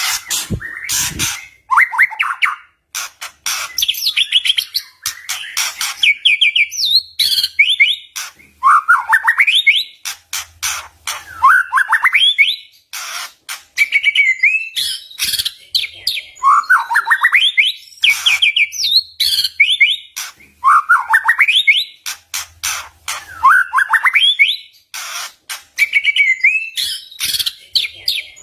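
White-rumped shama (murai batu) singing a loud, varied song: repeated rising, sweeping phrases interspersed with sharp clicking notes, in bursts every second or two.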